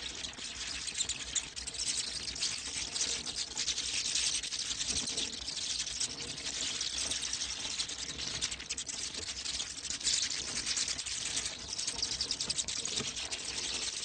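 Bats giving a dense, steady crackle of rapid clicks and chirps.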